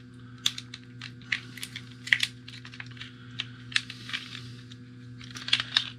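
Irregular small clicks and taps of hard plastic being handled as the receiver modules are pulled out of Fat Shark FPV goggles, over a steady low hum.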